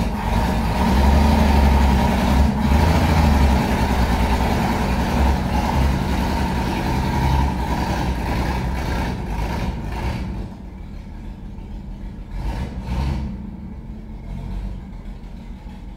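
Chevrolet C14 pickup engine running as the truck pulls away, loud for about the first ten seconds, then dropping off sharply as it drives off down the street.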